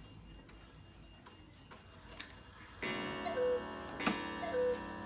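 Beha cuckoo clock striking as its hands are turned: a few faint clicks, then about three seconds in a ringing strike followed by the falling two-note cuckoo call. A second strike and cuckoo call come about a second later.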